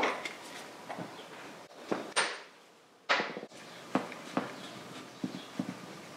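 Metal tool clinks and knocks as a hex key works the bolts loose on a Harley Sportster fork yoke (triple tree): a series of short, sharp knocks and clicks, the loudest about two and three seconds in.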